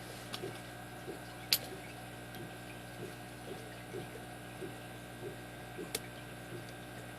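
Lock pick and tension wrench working the pin tumblers of a brass padlock cylinder: faint light ticking with two sharp metallic clicks, the louder about a second and a half in and another near six seconds.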